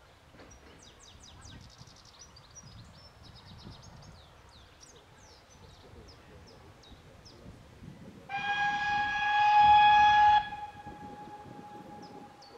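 A steam locomotive's whistle gives one blast of about two seconds on a single steady note, then drops to a faint held note. Small birds chirp before it.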